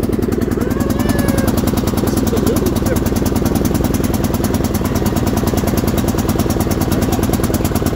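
Cub Cadet XT1 riding lawn mower's engine running steadily as the mower drives along at an even speed.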